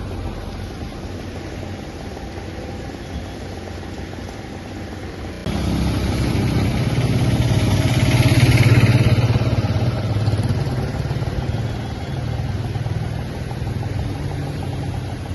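A motor vehicle's engine running with a low drone, quieter at first, then louder after an abrupt cut about five seconds in, swelling around eight to nine seconds and easing off again.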